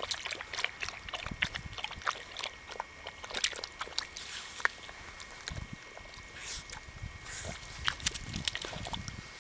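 Welsh Springer Spaniel splashing with its muzzle in shallow muddy ditch water: a run of small, irregular splashes and sloshes.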